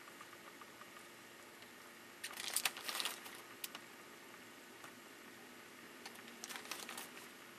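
A metal spoon scooping white powder from a plastic tub and tipping it into a saucepan: two short bursts of crackly clicks and scraping, about two seconds in and again near the end, over a faint steady hum.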